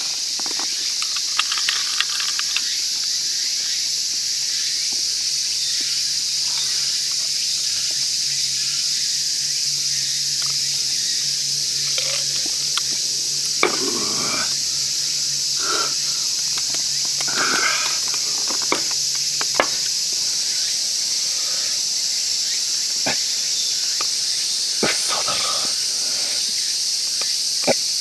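Steady high-pitched insect chorus, with a few light clicks and knocks now and then.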